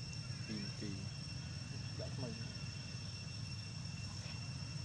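Steady night chorus of insects such as crickets, a constant high trill in several even tones over a low hum. A few short voice-like calls come through about half a second and two seconds in.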